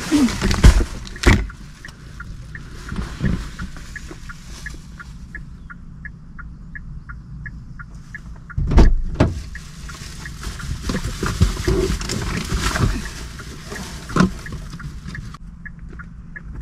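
Car doors and grocery bags being handled around a parked car: rustling, a thump about a second in and a louder door slam near the middle. Before the slam a quick repeating electronic chime, about three or four a second, comes from the car and stops as the door shuts; it comes back faintly near the end.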